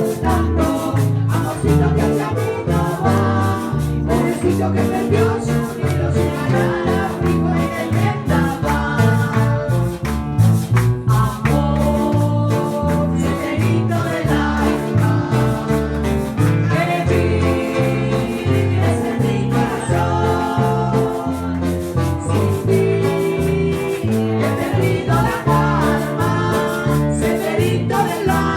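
A small acoustic ensemble playing Latin American music, with singing.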